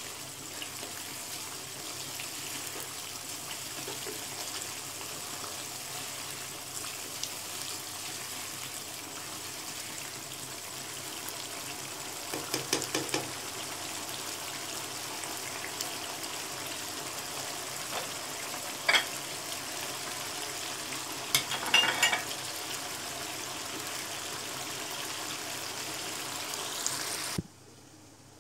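Chicken karahi masala sizzling steadily in oil in a karahi on a high flame, the stage where the masala starts to release its oil. A spatula scrapes and knocks against the pan in a few short bursts. The sizzle cuts off suddenly near the end.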